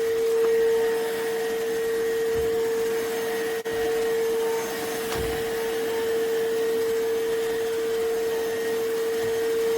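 iwoly C150 cordless stick vacuum cleaner running steadily: a constant motor tone over the rush of air, with a brief dip about three and a half seconds in.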